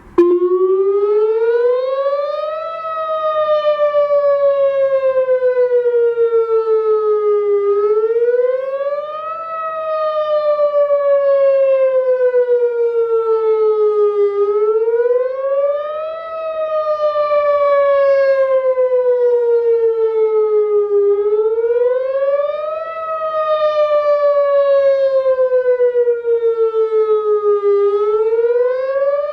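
Whelen WPS 2908 electronic outdoor warning siren sounding a test signal. It cuts in abruptly, then its tone sweeps up over about two and a half seconds and slides back down over about four, repeating roughly every six and a half seconds.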